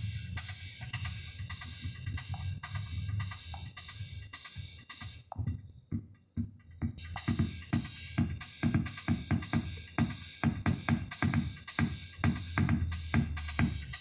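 Electronic music with a drum-machine beat playing from a USB pen drive through a Continental CD5408 Renault car radio fitted with a Bluetooth/USB board. The music drops out for about a second and a half around the middle, then comes back with heavy kick-drum beats.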